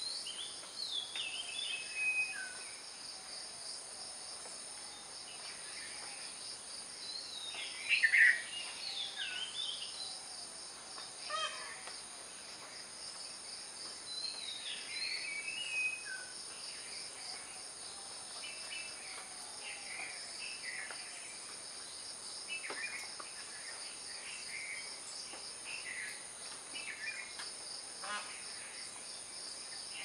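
Birds chirping and calling in short scattered phrases, loudest about eight seconds in, over a steady high-pitched insect drone.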